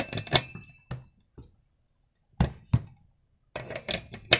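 Metal clanks and knocks of a homemade clutch key on a long bar working a chainsaw's clutch loose, a few with a short metallic ring. A cluster of knocks at the start, two strong ones about halfway, and another cluster near the end.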